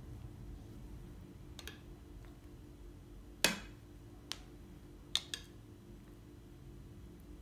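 A metal spoon clinking against glass as sauce is scooped from a glass bowl and drizzled over phyllo in a glass baking dish: a few sharp clicks, the loudest about three and a half seconds in with a short ring, then a quick double click a couple of seconds later.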